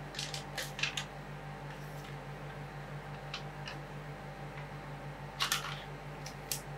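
Scattered sharp light clicks and taps of tools and containers being handled: a quick cluster in the first second, a louder pair about five and a half seconds in, and a few single ticks between. Under them runs a steady low hum, typical of the cooling unit of a rolled-ice-cream cold plate.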